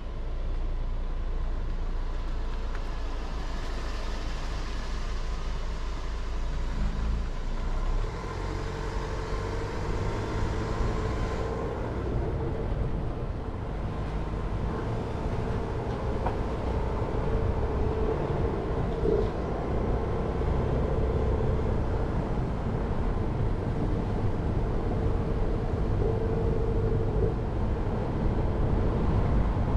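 Jeep Renegade driving slowly: steady engine and tyre noise.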